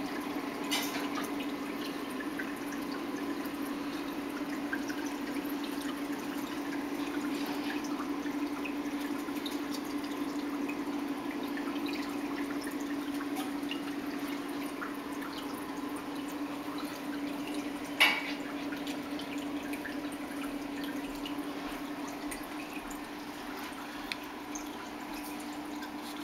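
Aquarium water trickling and dripping, over a steady low hum from the tank's equipment. One sharp click about two-thirds of the way through.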